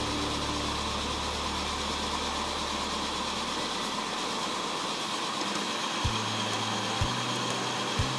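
Accucraft Ruby #5 live steam locomotive running in place with its driving wheels spinning, giving a steady hiss of steam and the whir of its running gear.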